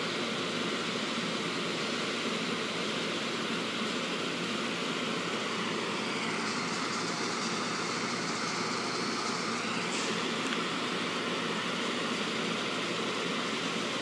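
Steady hum and hiss of a stopped SEPTA push-pull commuter train standing on the track, its onboard equipment running. A higher hiss swells for a few seconds midway, ending with a short tick.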